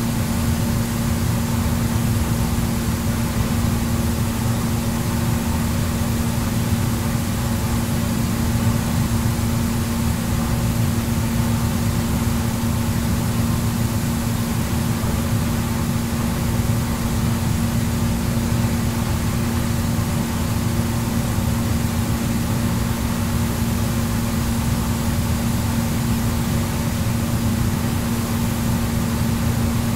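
Jacuzzi running with its jets on: a steady churn of rushing, bubbling water over a constant low hum.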